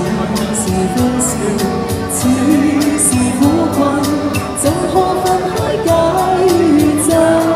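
A woman singing a pop song into a microphone, amplified through a street PA speaker over an accompaniment with a steady beat.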